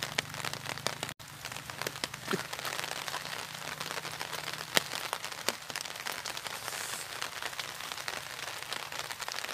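Rain pattering on an umbrella held overhead, a steady hiss of rain with many sharp single-drop ticks. A low steady hum sits under it for the first half.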